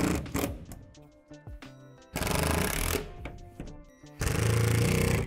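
RIDGID cordless impact driver hammering screws home in three short bursts, each about a second long: one ends just after the start, one comes about two seconds in and one near the end. It is driving screws through shelf brackets into the shed's plastic wall.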